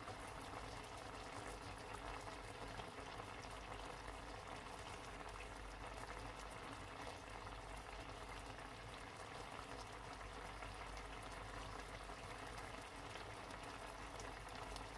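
Vegetable green curry sauce simmering in a frying pan, a steady soft bubbling.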